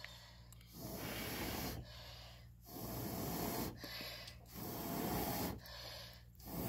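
Someone blowing hard into a wood-fired stove's smouldering firebox to revive the fire: a run of rushing, breathy blows about a second long, roughly every two seconds, with pauses to draw breath between them.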